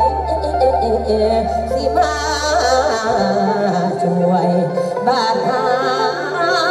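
A live Thai band playing through a large outdoor PA, a long held bass note under it for the first three seconds, then a singer's wavering, ornamented melody entering about two seconds in and again near the end.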